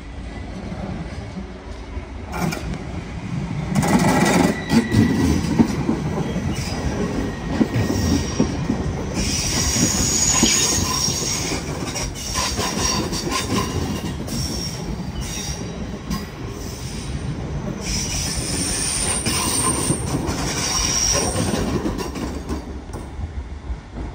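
An NS Koploper (ICM) electric multiple unit runs past along the platform, with wheels rumbling and clattering over the rails. High-pitched wheel squeal comes and goes several times as the coaches pass. It is loudest as the front passes about four seconds in and fades near the end.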